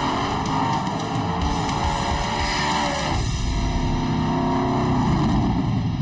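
Drag race cars' engines at full throttle, their pitch climbing as they accelerate down the strip, under guitar-driven background music.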